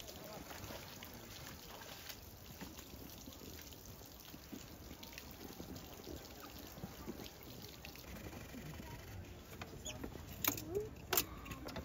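Water trickling steadily from a small rock waterfall into a pond. Two sharp taps come near the end.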